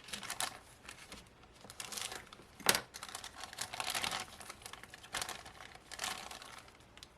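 Plastic bag crinkling and plastic model-kit parts trees clicking against each other as they are handled, with one sharper click about two and a half seconds in.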